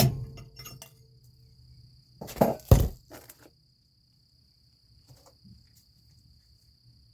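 Metal striking metal during trailer S-cam brake work: two sharp clanks about two and a half seconds in, followed by lighter clinks. Crickets chirp steadily in the background.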